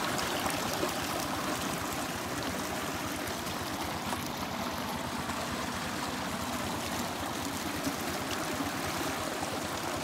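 Irrigation water running steadily through a field channel, an even rushing and trickling with no breaks.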